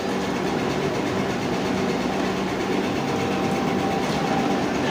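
Plastic-moulding workshop machinery running steadily: an even mechanical din with a constant mid-pitched tone over it.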